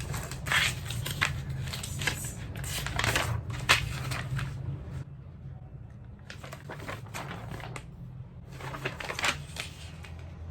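Metal cart parts clinking and rattling as they are handled and fitted together during assembly, in a run of short irregular clicks that pauses briefly about halfway through, over a steady low hum.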